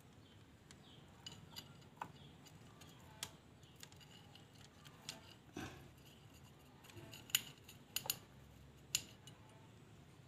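Faint, irregular metallic clicks and clinks of a motorcycle cylinder block being worked down over a new oversize piston, its rings catching on the bore's edge. The clinks are sharper and closer together in the second half.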